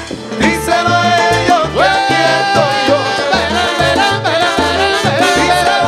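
Live salsa band playing, with sustained melodic lines over a steady, repeating bass and percussion groove.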